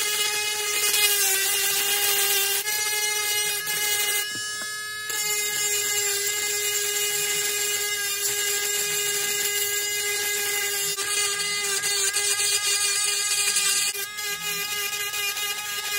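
Battery-powered Dremel 7300 rotary tool running with a steady high whine, its curved grinding bit grinding dried glue residue off a plastic toy base. The gritty grinding noise comes and goes as the bit touches the work, dropping out for about a second some four seconds in while the motor keeps running.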